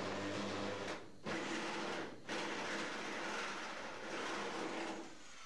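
Electric drill driving a hole saw through the car's sheet-steel floor pan, running steadily under load. It stops briefly about a second in and again about two seconds in, then cuts out near the end as the hole goes through.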